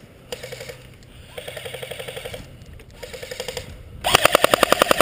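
Airsoft electric rifles firing full-auto bursts, a rapid rattle of about fifteen shots a second with a motor buzz under it. Three shorter, fainter bursts are followed about four seconds in by a long, much louder burst close by.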